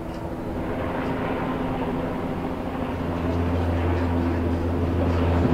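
An engine running steadily, a low motor hum that slowly grows louder, with a deeper drone joining about three seconds in.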